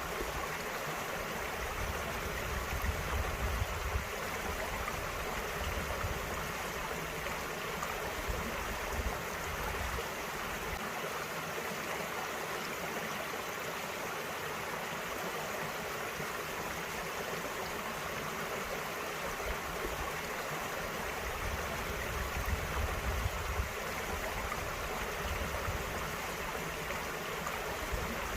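Small mountain stream flowing over rocks, a steady babbling rush of water, with a low rumble that swells and fades a couple of times.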